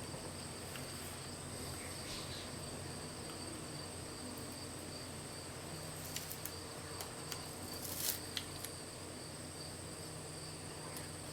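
Faint handling of an adhesive rubber grip wrap on a pistol frame, peeled back and pressed into a new position: a few small ticks and rubs about six to eight seconds in, over a steady high-pitched whine.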